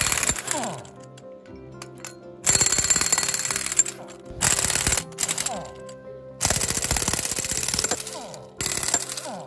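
Impact gun hammering in about five bursts of a second or two each, loosening the large cap nuts on a steel swing check valve. Several bursts end with the gun's motor spinning down in a falling whine.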